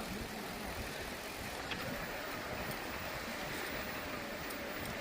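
Steady wind and rolling noise from a mountain bike under way, with a low rumble and a faint wavering hum.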